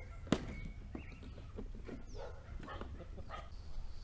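Loose wooden boards knocking and clattering as they are lifted and sorted from a pile, a series of short sharp knocks with the loudest about a third of a second in.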